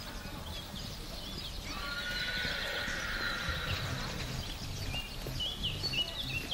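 A horse whinnying once, a drawn-out call of about two seconds starting about a second and a half in, with short high chirps before and after it.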